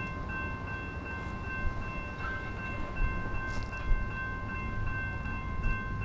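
Railroad grade-crossing warning bell ringing steadily, its high ringing tones repeating without pause over a low rumble.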